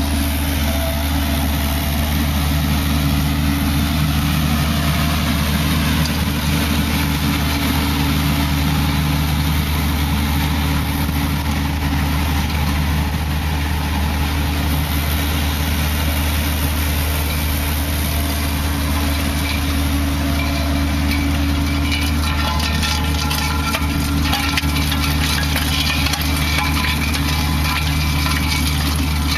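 Avant 635 compact loader's diesel engine running steadily while its Harley box rake's roller works loose soil. From about two-thirds of the way through comes a dense, rapid clatter of stones and grit against the rake.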